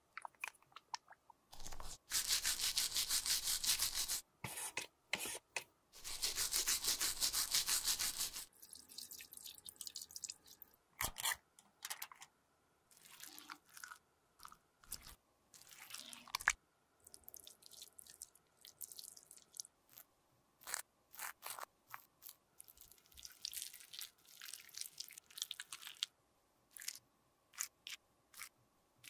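Close-miked, sticky and crunchy handling sounds of makeup work on a silicone lip model: two spells of dense crackling hiss early on, then scattered small clicks, taps and squishes from tools and fingers working gloss, gel and glitter sequins on the lips.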